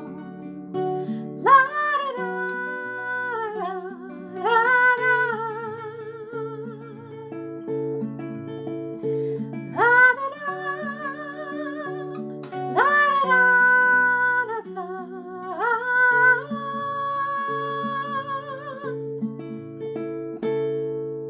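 Song outro: acoustic guitar accompaniment with a woman's wordless vocal, five held notes with vibrato, each scooping up at the start. The music fades near the end.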